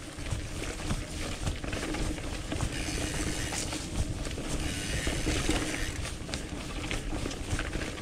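Mountain bike rolling down a dirt forest trail: tyres running over the dirt with the frame and parts rattling and knocking over roots and bumps, in a steady rumble with many short clicks.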